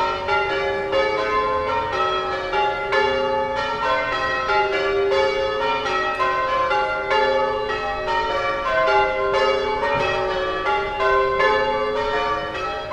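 Church bells pealing in change ringing: several bells of different pitches struck one after another in a steady, rapid run, several strikes a second, their rings overlapping.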